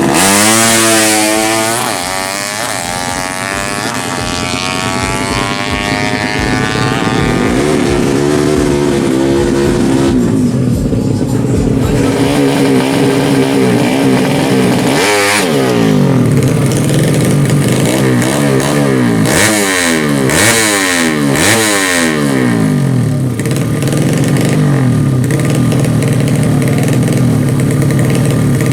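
Tuned four-stroke underbone drag bikes revving hard, their engine pitch sweeping steeply upward as they accelerate. About two-thirds of the way through, there is a run of quick rising-and-falling throttle blips.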